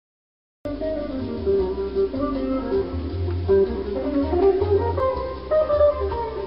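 Instrumental background music that starts suddenly about half a second in, after silence, and runs on with a changing melody over a bass line.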